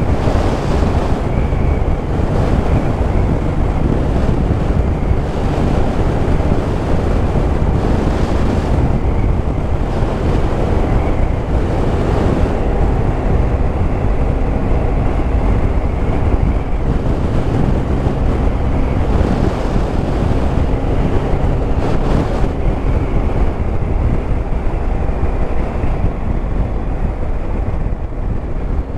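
Heavy wind rush over a helmet-mounted camera's microphone on a moving motorcycle, with the Yamaha Tracer 9 GT's 890 cc three-cylinder engine running steadily underneath.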